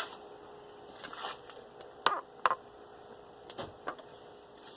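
A handful of scattered light clicks and taps, about six in all, with the strongest near the start and two close together around two seconds in, over a faint steady room hum.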